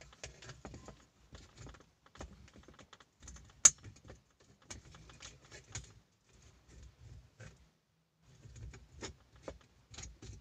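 Plastic phone holder mount being clamped onto a car's rear-view mirror by hand: a string of small irregular clicks, taps and rattles, with one sharp, much louder click about three and a half seconds in.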